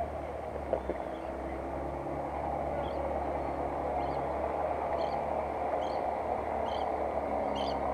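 Waterside outdoor ambience: a steady low rumble, with a short high chirp repeating about once a second from about three seconds in.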